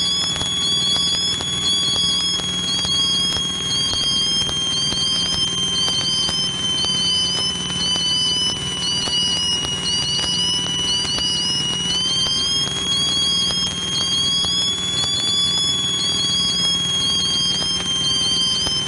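Piper Cherokee cockpit noise on final approach: the engine's steady hum under a strong high whine that slowly sinks in pitch, steps up about two-thirds of the way through, then sinks again. A faint chirp repeats about once a second.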